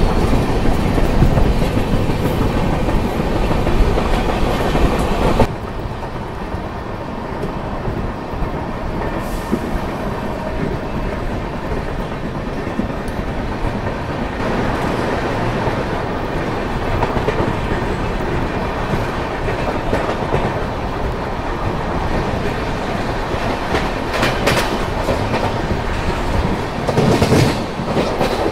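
A Duronto Express train running at speed, heard from an open coach door: the wheels clatter steadily on the rails under a rush of noise, louder for the first five seconds or so. Near the end comes a quicker run of clatter as the coaches cross the points through the station yard.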